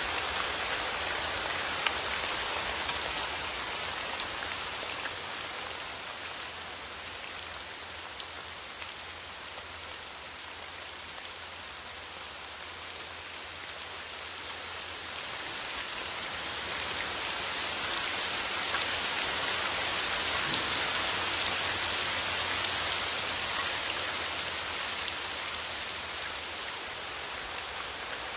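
Steady rain falling, a dense hiss of drops with no music over it. It eases slightly in the middle and swells again later on.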